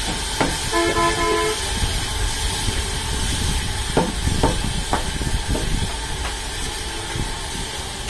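Sawmill machinery running with a steady noise, with a short horn-like tone about a second in. Near the middle come four sharp wooden knocks about half a second apart as a wooden block is worked in under the squared log on the carriage.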